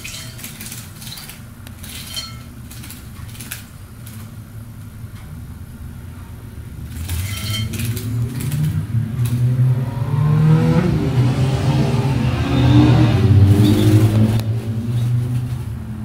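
A canary splashing in a shallow bowl of water: short, scattered splashes in the first few seconds and again around seven seconds in. From about seven seconds in, a loud low rumble with a wavering, gliding pitch swells up and stays the loudest sound until near the end.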